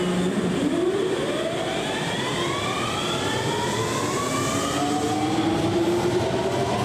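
Kintetsu 7000 series train's Mitsubishi GTO-VVVF inverter whining as the train pulls away and accelerates: several tones together that climb in pitch, then drop back and climb again in steps, over the rumble of the running gear.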